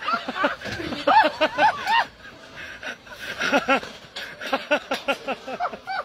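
A person laughing in several runs of quick, short ha-ha sounds, with brief pauses between the runs.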